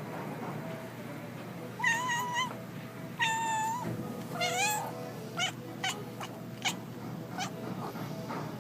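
Domestic cat meowing three times, the third call bending up and down in pitch, followed by a run of about five short, high squeaks.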